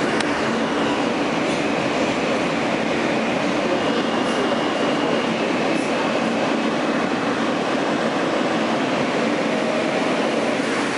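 Interior of an R160A subway car running on elevated track into a station: a steady rumble of wheels on rail.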